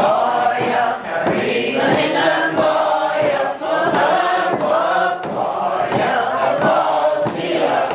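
A group singing a Scottish Gaelic milling song together, with the cloth thumped on the wooden table in a steady beat of about two strokes a second as the wool is fulled.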